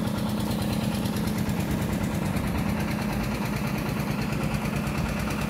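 A small engine running steadily nearby: a continuous low hum with a fast, even pulse that does not change.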